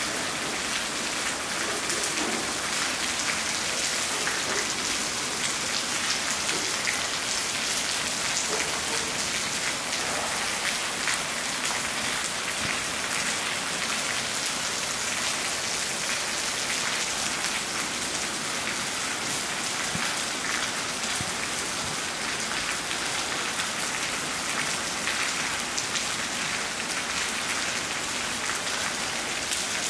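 Steady rain falling, an even hiss with fine scattered patter of drops.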